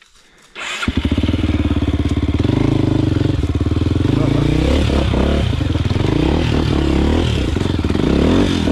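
Motorcycle engine starting up about half a second in, then running with the throttle opening and closing.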